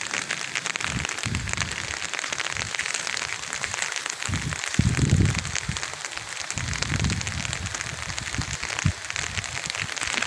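Light rain pattering steadily, with irregular low rumbles underneath.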